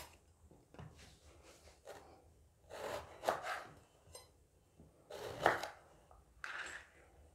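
Kitchen knife slicing through an eggplant on a wooden cutting board: three separate cuts, each a short scrape ending on the board, the second one the loudest.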